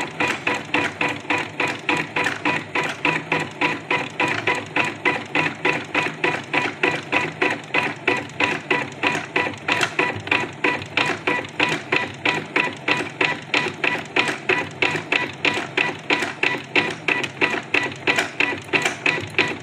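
Janome Secio embroidery machine stitching at a steady pace, its needle bar striking in an even rhythm of about five stitches a second over a faint steady motor tone.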